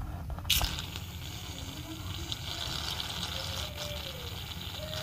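Aerosol can of shaving foam spraying in one long steady hiss, starting about half a second in.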